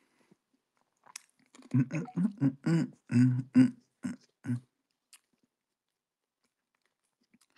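A man's voice making a run of short wordless vocal sounds, starting about a second in and stopping before the halfway point, with a few faint mouth clicks around it.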